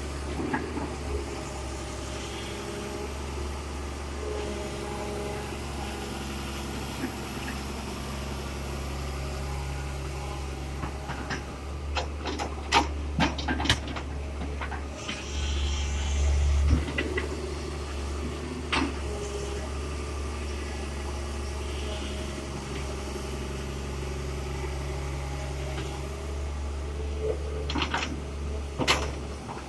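Heavy diesel engine of earthmoving machinery running steadily at a low, even pitch, with a few sharp knocks and clanks about halfway through and again near the end.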